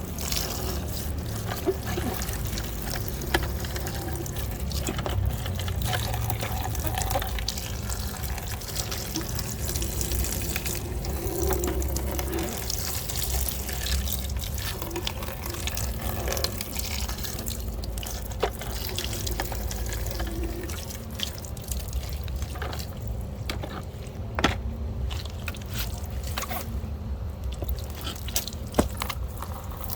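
Water running and splashing as muddy toys are washed, with a few sharp knocks.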